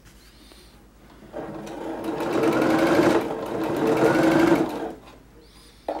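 Electric domestic sewing machine stitching a short run. It starts about a second and a half in, runs fast and even with a whine that rises in pitch, and stops about a second before the end. A single click comes just before the end.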